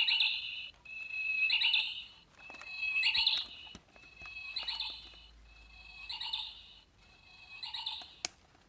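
Orpat quartz alarm clock's bird-song alarm melody played through its small speaker: a short electronic chirping phrase repeated about every second and a half, growing fainter, then a click near the end as it is switched off.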